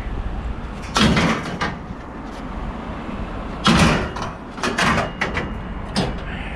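Scrap metal clanking and scraping as pieces are loaded onto a trailer: a clatter about a second in, a louder one near four seconds, then a quick run of sharp knocks.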